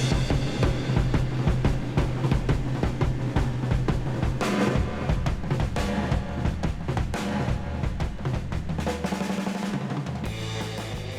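Background music with a drum kit and a steady bass line.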